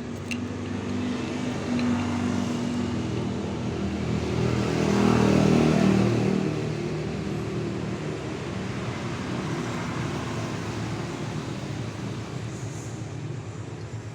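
Road traffic: a motor vehicle's engine passing close by, growing louder to a peak about five seconds in and then fading back into steady traffic noise.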